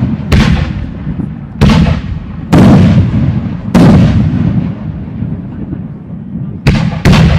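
Aerial firework shells bursting: six loud bangs, each trailing off in a rumble. The first four come about a second apart, then a lull, then two in quick succession near the end.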